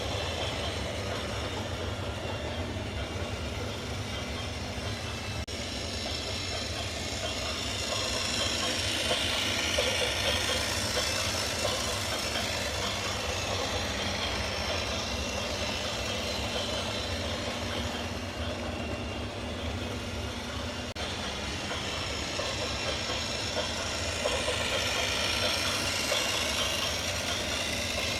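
Steady vehicle noise, swelling louder about ten seconds in and again near the end.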